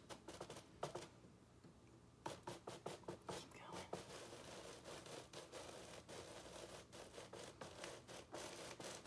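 Faint, irregular scratching and crackling of a paper sheet being slowly pulled out from under a layer of sand, with a quieter gap about a second in.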